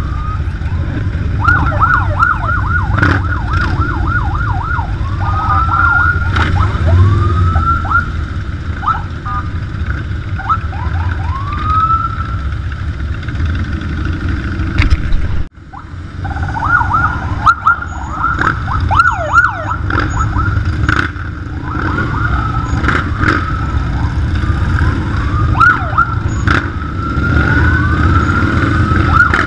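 Several sirens sounding together, fast yelping runs mixed with slower rising wails, over the steady low rumble of big motorcycle engines riding in a convoy. The sound drops out for a moment about halfway through.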